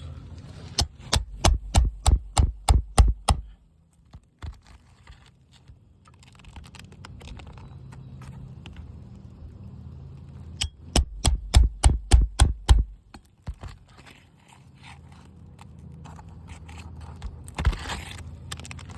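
Hammer striking a nail puller to work out roofing nails: two runs of about ten quick metallic taps, some four a second, a few seconds apart, with a single strike near the end.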